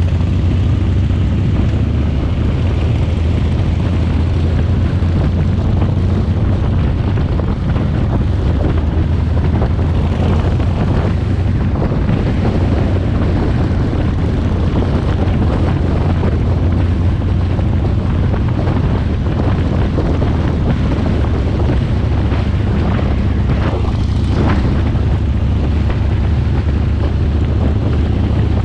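Motorcycle engine running at a steady pace while riding, with heavy wind noise on the microphone.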